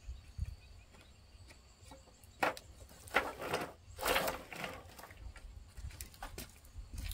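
A bundle of round wooden poles knocking and rubbing together as it is handled, in a few short bursts of clatter from about two and a half to five seconds in.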